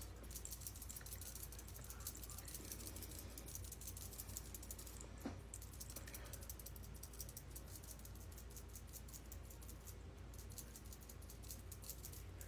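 Faint, quick soft ticking and patting from a makeup sponge dabbing foundation onto the face, with one sharper click about five seconds in, over a low steady hum.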